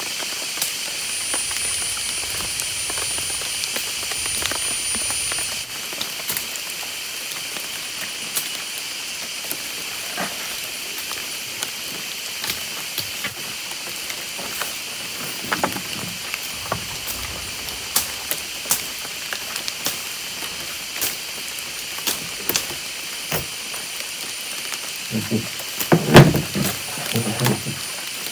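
Steady high hiss of jungle background, with scattered short clicks and knocks from a fishing net and its weights being handled in a small fibreglass boat; a cluster of louder knocks near the end.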